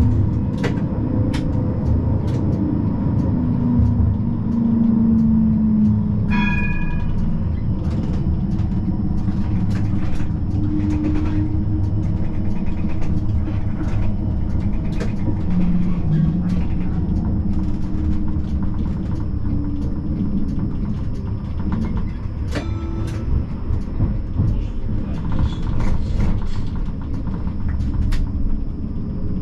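Siemens Combino tram running along its track, heard from the driver's cab: a steady low running rumble with motor tones that shift in pitch, and repeated clicks of the wheels over rail joints and points. A brief ringing tone sounds about six seconds in.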